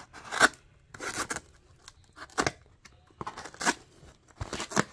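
A folding knife slitting the tape on a cardboard shipping box, and the cardboard being scraped and torn open, in a series of short, irregular strokes.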